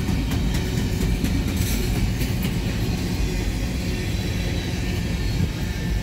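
Freight train of double-stack intermodal well cars rolling past: a steady low rumble of steel wheels on rail, with a few faint clicks in the first couple of seconds.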